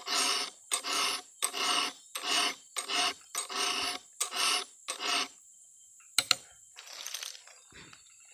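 Round file rasping across a cutter tooth of a Stihl 070 chainsaw chain, about ten even push strokes at about two a second. The gaps between strokes are the file being lifted on the way back, so it cuts only on the forward push. The filing stops about five seconds in, followed by a sharp click and a short scrape.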